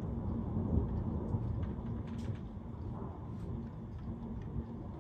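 Rolling thunder: a low rumble that swells to its peak about a second in, then slowly fades.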